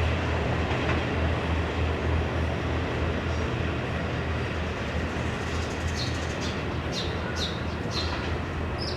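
KiHa 183-1000 series diesel train moving away, its low engine rumble slowly fading. Birds chirp several times in the second half.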